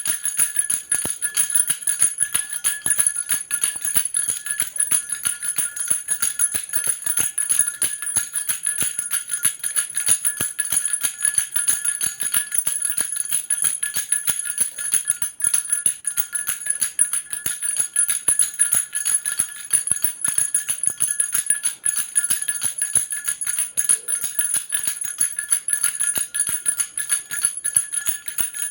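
Baby rattle with small bells shaken rapidly and without a break, a dense jingling over a steady bright ringing.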